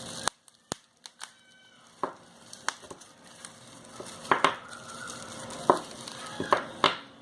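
Hands handling the plastic pack of Ni-MH AA rechargeable batteries: irregular clicks, taps and crinkles of plastic, with several sharper knocks in the second half.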